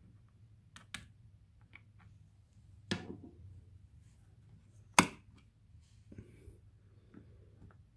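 Plastic snap rat trap being handled: light plastic clicks, a sharper click about three seconds in, then one loud, sharp snap about five seconds in as the spring-loaded wire striker comes down onto the bait cup.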